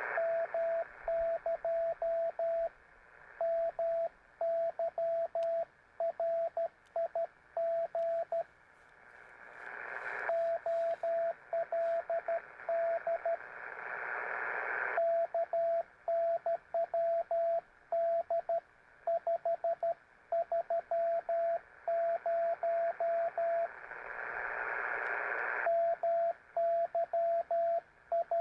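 Morse code (CW) from a ham radio transceiver: a steady mid-pitched tone keyed on and off in dits and dahs. Three times the keying pauses and the receiver's hiss swells up, then cuts off as the keying starts again.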